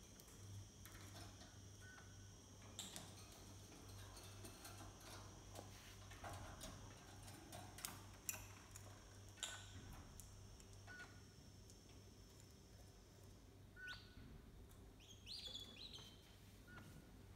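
Faint, sparse chirps of caged canaries and lovebirds, with a few short high calls near the end, among scattered small clicks and taps. A faint steady high tone and a low hum run through the first two-thirds and then stop.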